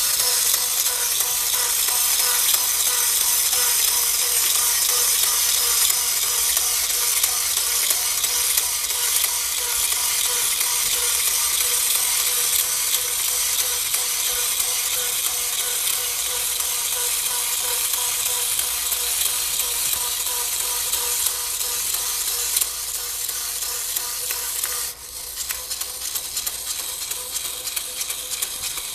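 Battery-operated Fire Man V toy's small motor and plastic gearing whirring with a steady whine and a fast rattling click as the fireman figure climbs the plastic ladder. A few seconds before the end the sound suddenly drops in level and the clicks turn sharper and more separate.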